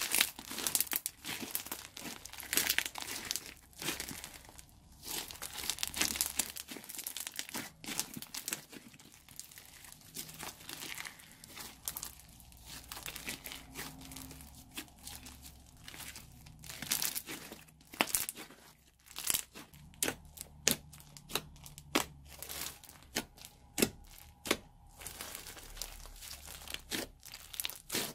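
Hands squishing, stretching and folding a lump of blue slime mixed with small coloured bits, giving a dense, irregular run of sticky clicks, pops and crackles as air pockets burst and the slime tears and sticks to the fingers.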